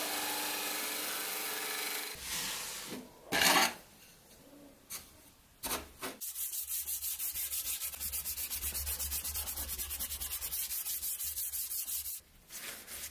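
A belt grinder grinding steel runs briefly. A few separate scrapes follow. Then a steel knife blade is hand-sanded with sandpaper in fast, even back-and-forth strokes, about six a second, for some six seconds.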